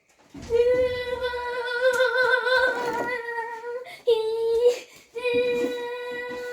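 A girl's voice singing long held notes at one steady pitch: one long note, a short one, then another long note.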